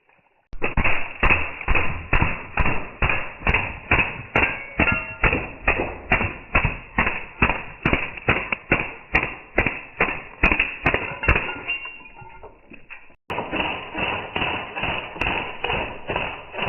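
Fully automatic BB gun firing a continuous string of shots, about three a second. The string breaks off abruptly about thirteen seconds in and picks up again at once.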